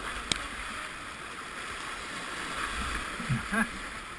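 River water rushing and gurgling around a kayak, with a single sharp knock just after the start and a brief voice-like call near the end.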